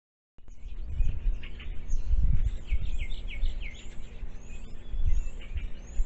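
Trail camera's outdoor microphone picking up gusty wind rumble, which is the loudest sound, with wild birds chirping and calling in the background, including a run of quick downward-sliding calls in the first few seconds. The sound starts abruptly about half a second in.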